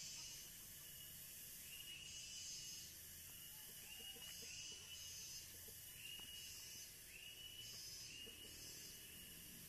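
Faint outdoor ambience of insects: short high buzzes every second or two, with repeated high chirps in between.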